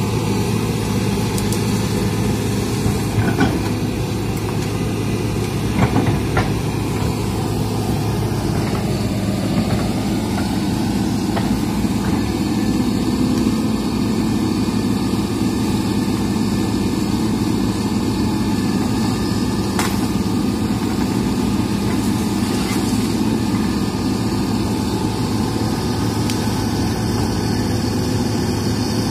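Hitachi crawler excavator's diesel engine running steadily while the arm and bucket work, with a few sharp knocks now and then.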